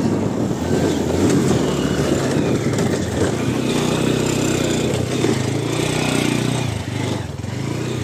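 A TVS motorbike's engine running steadily while it is ridden over a rough, rocky dirt track.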